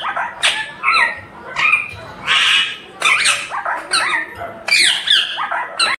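Rose-ringed parakeet (Indian ringneck) giving a rapid series of short, loud squawks, one of them harsher and noisier about two seconds in.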